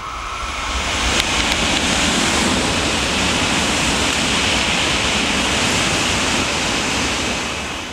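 A 700 series Nozomi Shinkansen running through the station at speed without stopping: a loud rushing noise that builds over the first second, holds steady while the train passes, and fades near the end.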